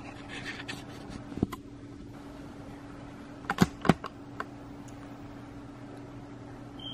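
Steady low electrical hum with a few light knocks and clicks of things being handled: one about a second and a half in, a louder pair just past halfway, and a fainter one after them.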